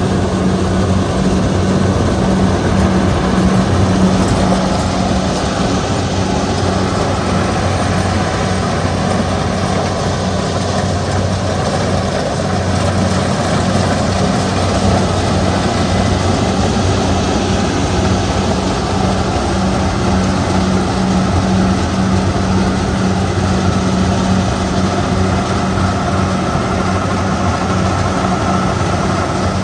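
Kubota DC-70 rice combine harvester working at close range: its diesel engine and threshing machinery give a loud, steady drone with a constant low hum.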